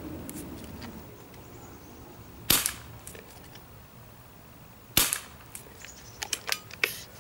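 Beeman P3 (Weihrauch HW40) air pistol firing .22 pellets: two sharp shots about two and a half seconds apart, followed near the end by a quick run of lighter clicks.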